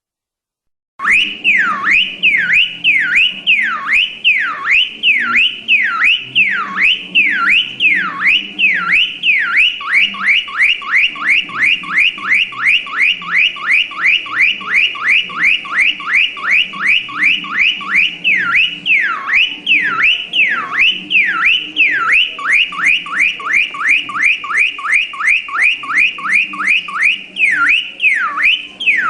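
Electronic car alarm siren sounding after starting abruptly about a second in. Its tone sweeps up and down over and over, switching between slow whoops and runs of fast warbling cycles.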